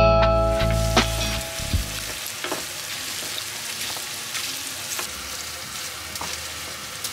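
Shrimp and diced bacon sizzling in a hot frying pan, stirred with a wooden spatula that makes scattered light clicks and scrapes. A music track fades out over the first two seconds.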